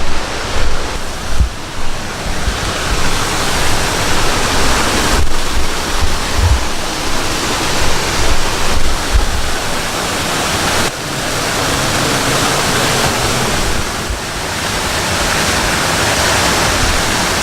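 Loud, steady rush of a waterfall, with uneven low wind rumble on the microphone for roughly the first ten seconds.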